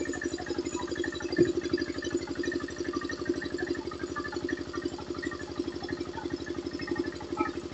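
An engine running steadily at idle, with a fast, even chug of about a dozen firing pulses a second.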